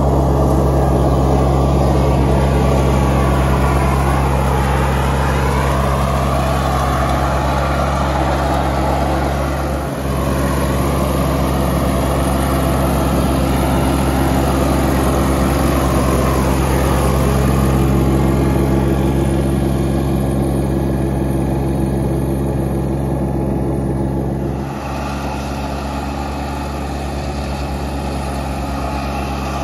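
John Deere F935 front mower's three-cylinder 878cc Yanmar diesel engine running steadily while mowing ryegrass. There are two abrupt breaks in the sound, about ten seconds in and near twenty-five seconds, and it is a little quieter after the second.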